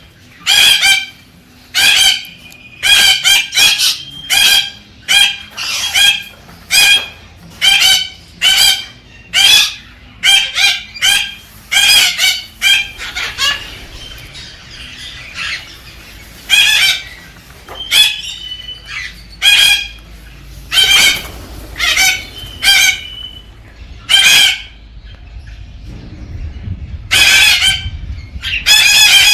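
Galah (rose-breasted cockatoo) giving short, harsh screeching calls in quick succession, several a second, with brief lulls about halfway through and again near the end.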